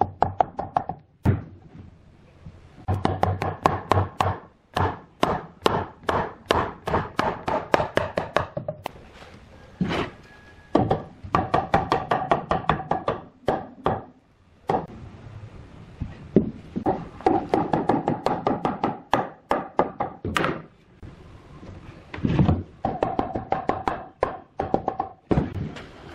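Rapid hammering on wood, about four blows a second in runs of several seconds with short pauses between them, each blow leaving a brief ringing tone.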